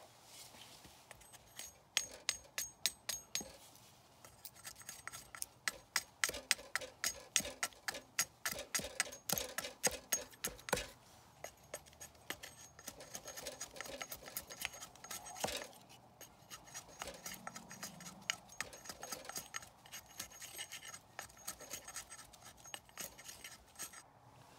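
Tomahawk blade shaving a wooden stick to a point: a quick run of sharp cuts that peel off curled shavings, then slower, softer scraping strokes with one harder cut in the middle.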